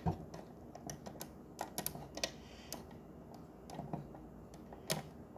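Lego bricks being handled and pressed onto a model, a scatter of small irregular plastic clicks and taps, the loudest right at the start and again near the end.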